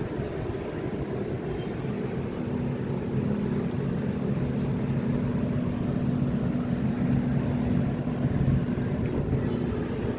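A steady, low motor-vehicle engine hum over a background of noise, getting a little louder a few seconds in.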